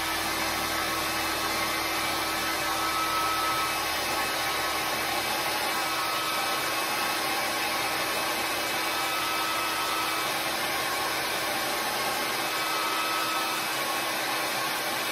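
Handheld hair dryer running steadily, blowing on freshly painted wood to dry the paint: an even rush of air with a faint steady hum from the motor.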